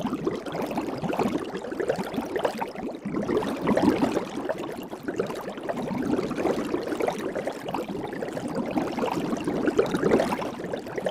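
Soap bubbles crackling and popping in a dense, continuous patter of tiny pops.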